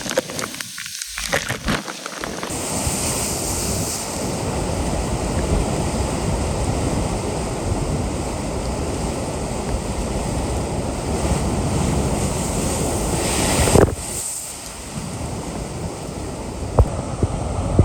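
Typhoon wind blasting across the microphone over heavy surf, a dense, loud rush of noise. The first two seconds are patchy and crackling. The sound drops abruptly to a quieter rush about fourteen seconds in.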